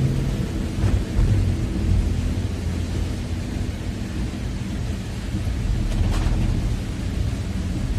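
Vehicle travelling in the rain: a steady low rumble of road and engine noise under an even hiss of rain.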